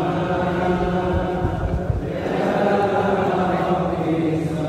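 A group of men's voices chanting together in unison, an Islamic devotional chant with long held notes and a short break between phrases about two seconds in.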